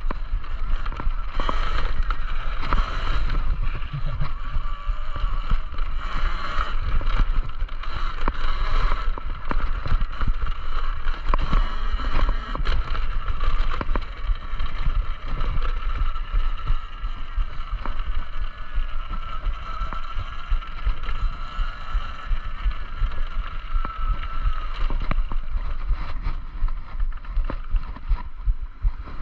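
Talaria Sting electric dirt bike being ridden over dirt, its electric motor whining with a pitch that drifts up and down as the throttle changes, over wind buffeting the microphone and tyre rumble.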